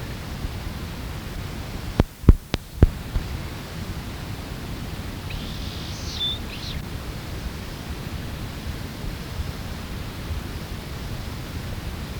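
Steady low rumble and hiss of an open-air field recording. About two seconds in come four sharp clicks, the loudest sounds. A few seconds later a single faint, high bird call of quick up-and-down glides is heard.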